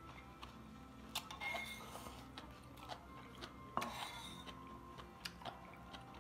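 Light clinks and taps of a metal ladle against an earthenware soup pot and a rice bowl as soup is ladled out, with two louder clinks that ring briefly, about a second in and about four seconds in.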